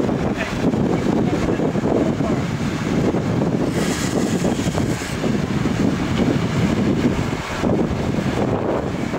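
Wind buffeting the microphone: a rushing, gusting rumble that rises and falls without letting up.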